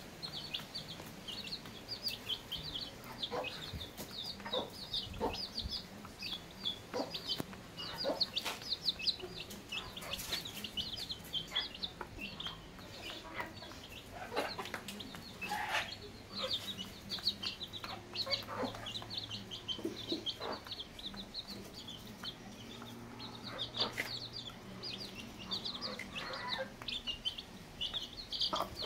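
Chicks peeping constantly, several high chirps a second, while the hen clucks low now and then as they feed.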